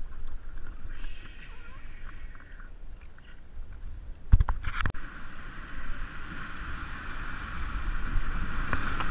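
Whitewater rushing and splashing around an inflatable kayak running a rapid, a steady rushing that grows louder toward the end. A little over four seconds in come two sharp knocks just before the rushing starts.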